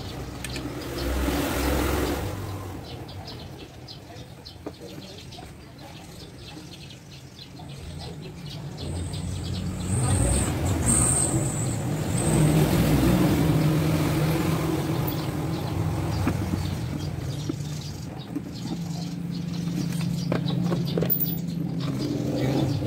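Road traffic passing, motor-vehicle engines swelling and fading several times, with light clicks and taps from hand work on a scooter's air filter housing in the quieter stretches.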